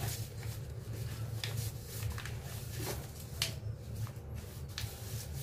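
A sheet of printer paper being folded and creased by hand on a wooden tabletop: soft rustling with a few scattered crisp crinkles and taps as the edge is brought to the centre and pressed flat.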